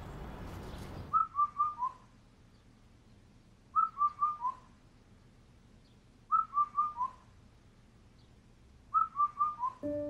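Phone alarm tone of whistled, bird-like chirps: a quick run of four falling notes, repeated four times about every two and a half seconds. A steady outdoor hiss cuts off about a second in, just before the first run.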